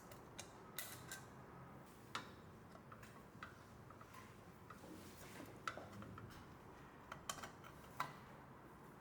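Faint, irregular clicks and taps of a screwdriver and small screws being worked loose from the electric control assembly, about eight in all.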